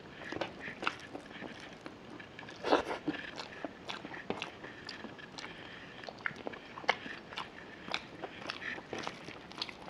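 Close-up eating sounds: wet chewing and lip smacking, with the squish of fingers mixing rice and curry on a steel plate. A quick run of sharp clicks and smacks, the loudest about three seconds in and again near seven seconds.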